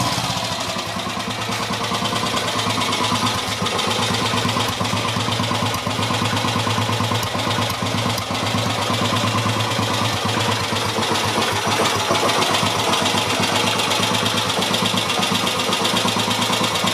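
Kawasaki Meguro SG250's single-cylinder four-stroke engine idling steadily after a start, making an abnormal noise that the owner is investigating.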